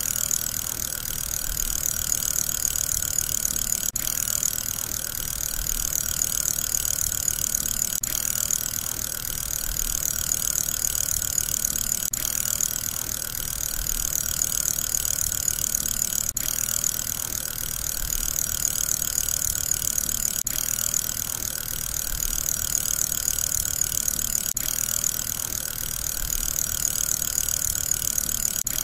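Steady whirring of a spinning fidget spinner with a strong high hiss. It is a short recording looped about every four seconds, with a brief dropout at each join.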